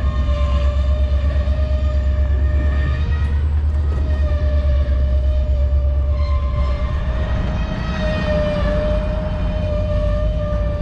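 EMD SD40-2XR diesel-electric locomotive's 16-cylinder two-stroke engine running hard while switching cars: a fast, pulsing low throb with a steady high whine over it. The low throb eases a little about seven seconds in.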